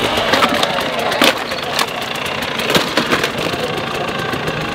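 Dirt bike engine blipped in short revs that rise and fall over its idle, with several sharp knocks in between.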